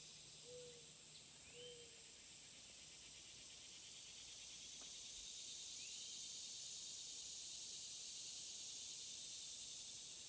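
A steady, high-pitched chorus of insects in a summer garden. A few short bird notes come in the first two seconds, and one brief chirp comes about six seconds in.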